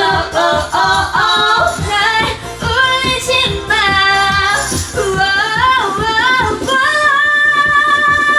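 Two women singing a pop song into karaoke microphones over a backing track with a steady beat, ending on a long held note. A tambourine is shaken along.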